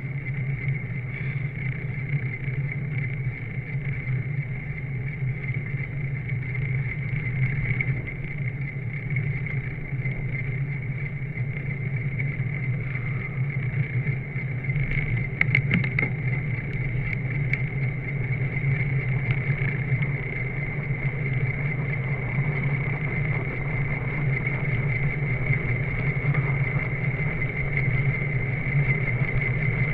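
Steady wind and road noise on a handlebar-mounted camera while a bicycle rolls along a paved road: a constant rumble with a steady higher hum over it. A few quick clicks come about halfway through.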